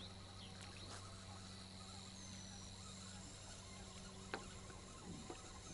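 Quiet outdoor background: faint short bird chirps over a steady low hum, with a single sharp click about four seconds in.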